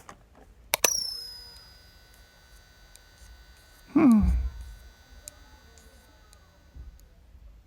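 Cartoon sound effects: a single bright ding that rings on for about a second, then, about four seconds in, a short vocal cry falling in pitch, over a faint steady hum.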